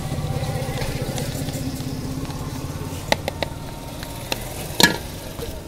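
A small engine running nearby with a steady, fast low throb that fades after about four seconds. Several sharp clinks come near the end, the loudest about five seconds in.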